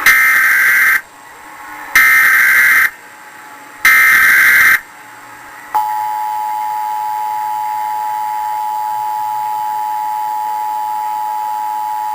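Emergency Alert System SAME header: three loud bursts of digital data tones, each about a second long and about a second apart, played through a television speaker. About six seconds in, the steady two-tone EAS attention signal (853 and 960 Hz together) begins, marking the start of an emergency alert activation.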